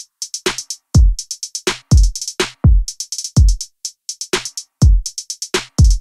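Background music: a drum-machine beat of deep kick drums that drop in pitch, with quick hi-hat-like hits between them and abrupt silent gaps.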